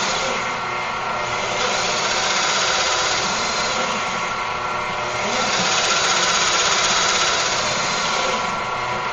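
Pillar drill press driving a nine-spindle multi-spindle drilling head under heavy load, its bits pressed into hard HDPE plastic without cutting through: the drill press lacks the horsepower for the job. A steady machine noise whose hiss thins out briefly three times, about every four seconds.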